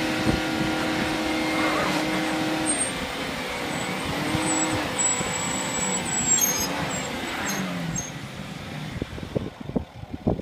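Land Rover Discovery 3 engine running hard under load as the SUV works in a deep muddy rut; its pitch holds steady, dips and rises a few times. About eight seconds in the engine falls away, leaving a few sharp knocks.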